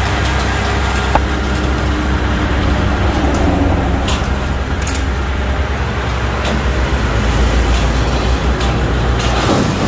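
Medium-duty wrecker's engine running steadily with a low drone while its winch cable pulls a crashed stake-body truck off an embankment. A few brief clicks and knocks come from the rigging.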